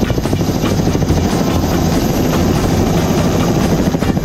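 Bell Ranger helicopter in cruise flight, heard from inside the cabin: a loud, steady turbine and rotor noise with a fast, even pulsing beat from the main rotor blades.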